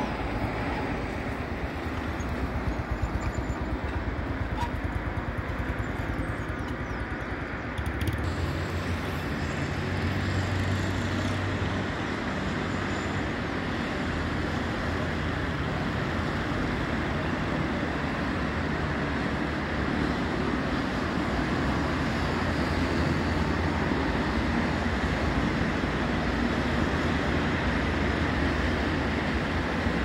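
Road traffic on a busy multi-lane avenue: a steady wash of passing cars, buses and motorbikes, heard from above. The traffic grows louder and deeper about eight seconds in.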